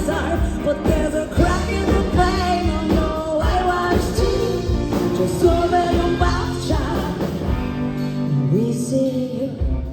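Rock band playing a song with drums, bass and guitar under a wavering melody line. About nine seconds in, the drum hits drop out and a low sliding note rises.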